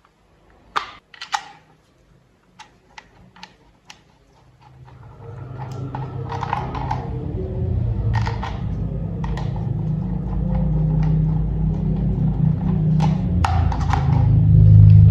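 Hard plastic toy parts clicking and snapping together in a string of sharp separate clicks. About four seconds in, a low steady hum fades in, grows louder and carries on under more clicks.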